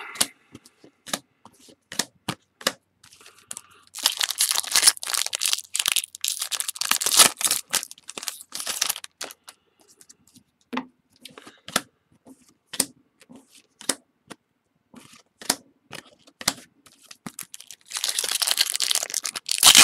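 Baseball card packs being torn open by hand, the wrappers tearing and crinkling in two longer stretches, about four seconds in and again near the end, with short clicks and rustles of cards being handled in between.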